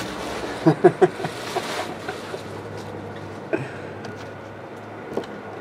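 Quiet room hiss with a low hum, broken by a few light clicks and taps: a small cluster about a second in, then single ones later.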